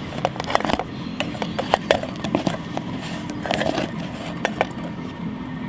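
A spatula scraping and clicking against the metal camping pot as a fried bannock flatbread is lifted out, in a string of short, irregular scrapes and taps over the steady hiss of a small gas camping stove burner.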